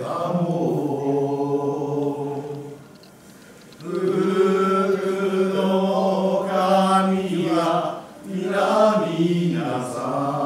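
Voices chanting the drawn-out song of Goten manzai, a traditional New Year's Mikawa manzai, in long held notes. The singing breaks off briefly about three seconds in, resumes in a longer held phrase, and pauses once more shortly before the end.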